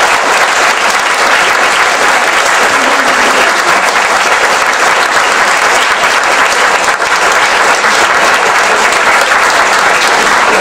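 Audience applauding: many people clapping at once, dense and steady.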